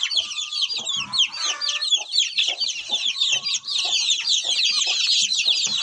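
A brood of young chicks and ducklings peeping without pause: many high-pitched, overlapping peeps, with a few fainter lower calls underneath.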